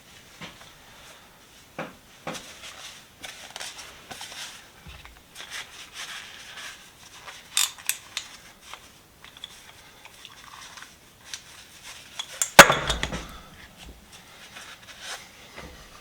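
Metal hand tools being handled on a workbench: scattered light metallic clicks and rattles, then one loud metal clank about twelve and a half seconds in.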